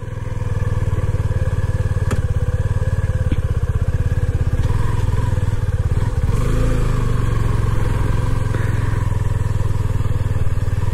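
Suzuki V-Strom SX 250's oil-cooled single-cylinder engine running under way, swelling up in the first half second as the bike pulls off, with its note changing about six seconds in as the revs shift.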